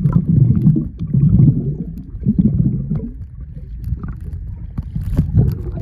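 Sea surf and wind rumbling on the microphone in uneven surges, with a few short sharp knocks.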